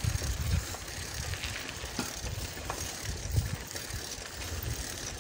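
Bicycle rolling along a dirt road: low wind rumble on the phone's microphone, with tyre and frame noise and a few light ticks.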